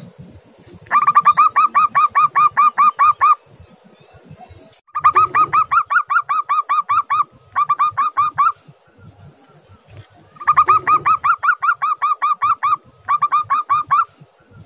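Zebra dove (perkutut) cooing in rapid staccato runs of about five notes a second, each run lasting one to two and a half seconds with short pauses between.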